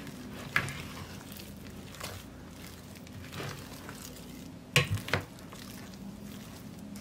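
Spatula stirring a wet, shaggy bread dough in a glass bowl: sticky squelching and scraping, with a few sharp knocks of the spatula against the glass. The loudest is a quick cluster of three about five seconds in.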